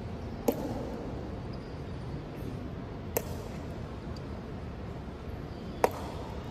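Three sharp clacks about two and a half seconds apart, the first and last loudest, from the ceremonial honour guard's drill striking the stone floor. They sound over a steady background noise.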